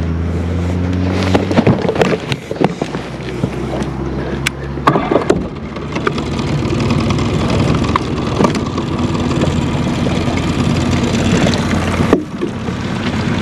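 Boat motor humming steadily, with scattered knocks and clunks on the boat. About five seconds in the hum changes to a rougher, noisier running sound.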